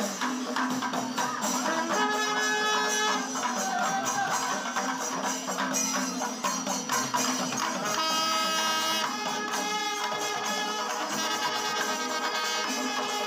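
Kerala temple percussion ensemble: chenda drums and ilathalam cymbals keep up a steady, dense clatter. Curved brass kombu horns blow long held notes about two seconds in, again around eight seconds in, and toward the end.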